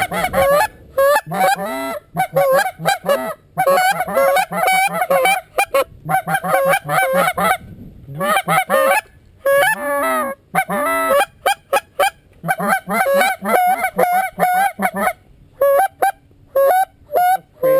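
Loud, rapid goose honking and clucking in quick runs of short calls, broken by brief pauses.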